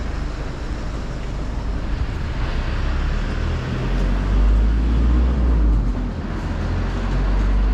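Road traffic passing: a low rumble with tyre hiss that swells around the middle and again near the end.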